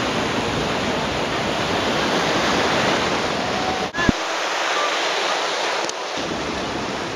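Surf breaking and washing in the shallows as a steady hiss, with a rumble of wind on the microphone. A short click about four seconds in, after which the low rumble drops away for about two seconds.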